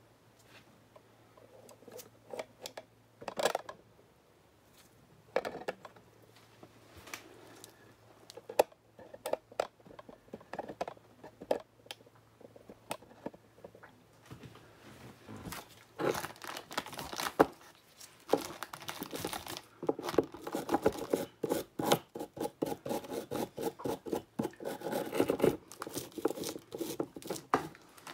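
Scrubbing a corroded battery terminal clamp clean by hand. The first half has scattered scratches; about halfway in it turns into a fast run of scraping strokes, several a second.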